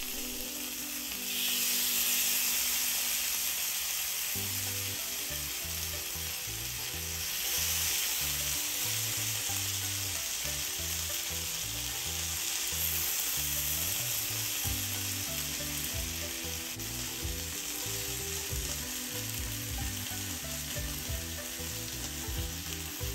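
Saucy chicken Manchurian sizzling on a preheated cast-iron sizzler platter with a steady hiss. The hiss swells about a second and a half in and again near eight seconds as more is spooned onto the hot plate.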